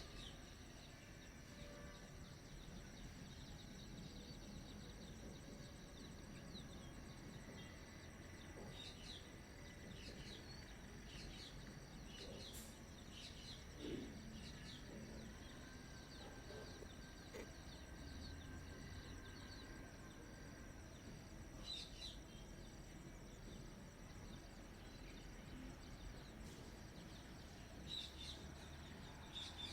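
Faint outdoor ambience: scattered short bird chirps over a low, steady background noise.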